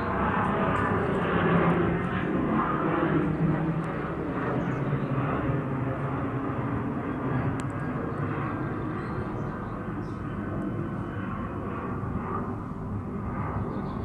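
Jet airliner flying overhead: a steady engine rumble that slowly fades as the plane moves away.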